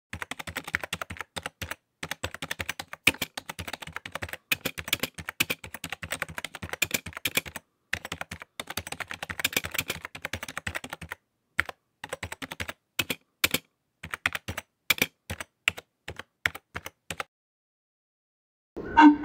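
Typing sound effect: rapid, irregular keystroke clicks, stopping about two seconds before the end. A flute-like wind instrument starts playing at the very end.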